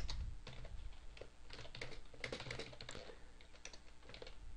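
Typing on a computer keyboard: a run of soft, irregular key clicks.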